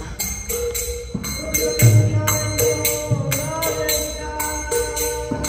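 Devotional kirtan music: a two-headed barrel drum is beaten with heavy low strokes, while hand cymbals jingle in a steady beat about three times a second over a held melody line.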